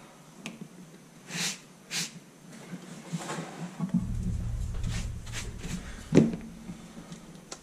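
Handling noises on a work mat: short rustles and breathy puffs, a low rumble as things are moved, and one sharp knock about six seconds in as a cordless Dremel rotary tool is picked up. The tool is not running.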